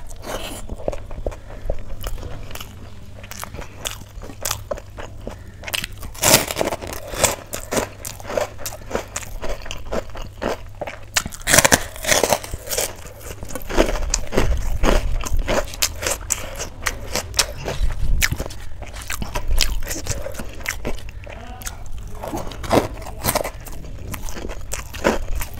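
Close-up mukbang eating sounds: chewing with wet mouth smacks and crunches, while fingers mix rice on a steel plate. Sharp clicks and smacks come irregularly throughout.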